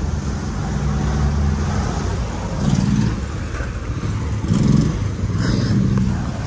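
Road traffic: a motor vehicle engine running close by, with a motorcycle passing on the road. The engine sound is steady and low, with louder swells about three and five seconds in.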